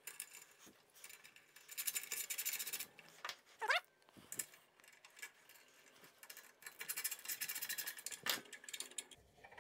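Hand tool fastening the bolt of a replacement roller on the metal crosscut carriage of a Kity 1619 table saw: two spells of fast, fine metallic clicking, with a short rising squeak between them and a few light knocks.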